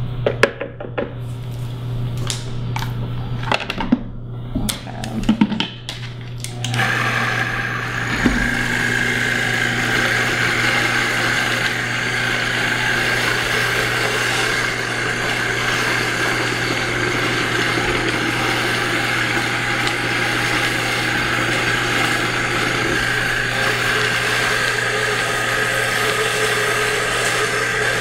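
A few knocks and scrapes of a spatula and a blender jar. About seven seconds in, a Vitamix blender starts and runs steadily, blending a thick paste of soaked macadamia nuts and water.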